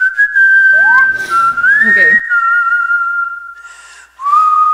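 A whistled melody of a few long held high notes, each opening with a short upward slide: the whistling at the start of a K-pop song's music video.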